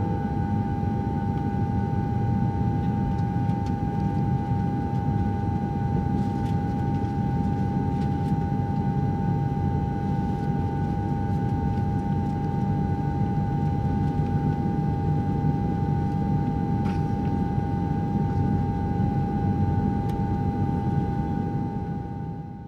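A steady mechanical hum with a steady high whine over it, engine-like and unchanging, fading out at the end.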